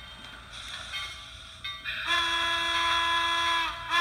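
Steam whistle from the Soundtraxx Tsunami 2 sound decoder in an HO scale Bachmann Norfolk and Western 2-8-0 model, played through the locomotive's small speaker: one long blast about halfway in, and a second blast starting right at the end.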